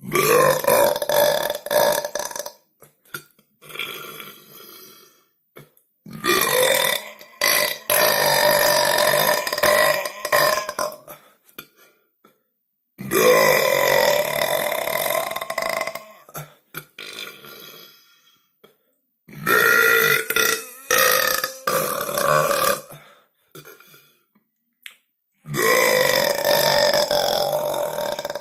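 A person's long, loud burps: about five in a row, each lasting two to five seconds with a held pitch that bends, separated by short pauses.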